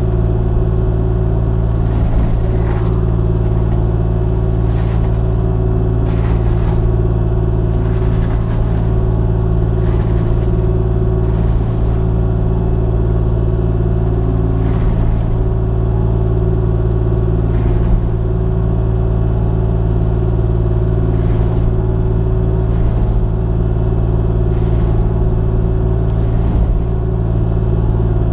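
Kubota KX040 mini excavator's diesel engine running steadily at high working revs while its Brush Hound FX-26 mulcher head chews small sucker growth, with brief sharp knocks every few seconds.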